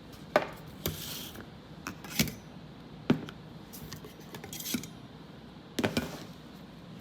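Dishes and utensils clinking and knocking: about six separate sharp clicks, spaced irregularly.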